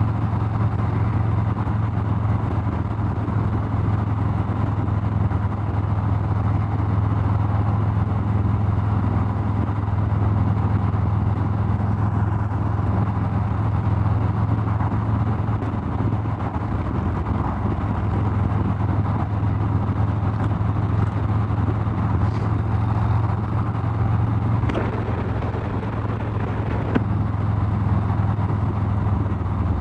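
Harley-Davidson Street Glide Special's V-twin engine running steadily at cruising speed, with wind and road noise, as heard from the moving bike.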